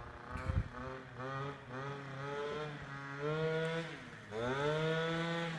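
Two-stroke scooter engine revving up and down in short repeated pulls, its pitch rising and falling, then one longer rev near the end, heard from some way off.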